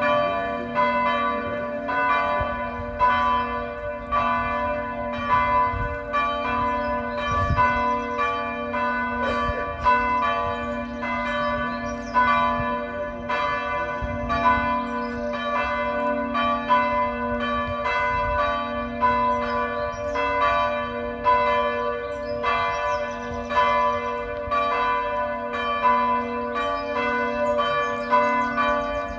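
Partial peal of swinging church bells cast by Causard of Tellin: several bells striking in an irregular, overlapping pattern, about one to two strokes a second. Their long ringing and a steady low hum run on between the strokes.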